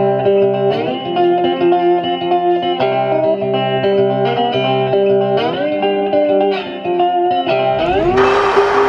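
Background music played on guitar, with notes changing in steps. Near the end it gives way abruptly to a steady noise.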